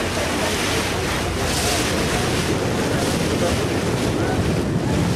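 Steady wind buffeting the microphone, with water rushing past a moving ferry.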